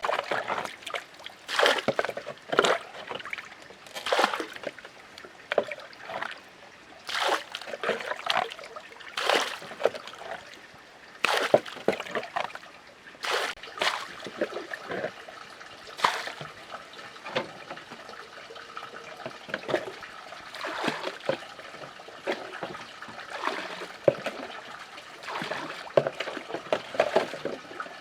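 Water splashing and trickling in quick, irregular splashes.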